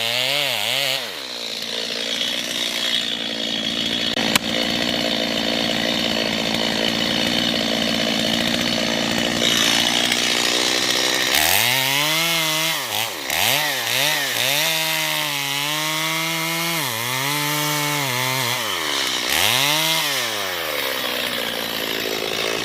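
Gas chainsaw cutting into a standing tree trunk, most likely making the notch of the face cut. Its engine runs steadily under load for about the first ten seconds, then revs up and down repeatedly. A single sharp click comes about four seconds in.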